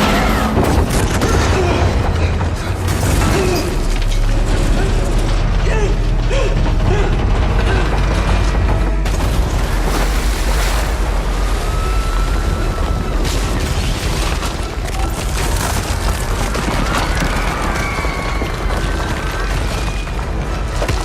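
Film sound effects of an earthquake striking a concrete dam: a deep, continuous rumble with repeated crashing and cracking impacts, mixed with background music.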